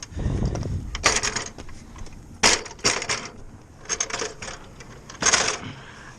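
About five sharp knocks and clanks at uneven intervals, like hard objects or metal being handled or struck.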